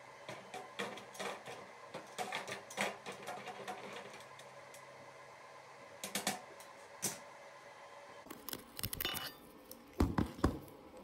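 Steel pieces and hand tools clinking and clattering in a run of sharp metallic clicks, with a few heavy thumps near the end.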